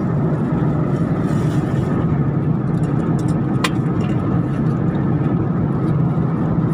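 Airliner cabin noise: the steady low roar of the jet engines and airflow heard from a passenger seat, with one sharp click a little past halfway.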